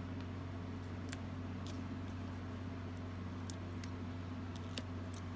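A steady low electrical hum, with a few faint light clicks and taps as tape and ribbon are handled on a paper card.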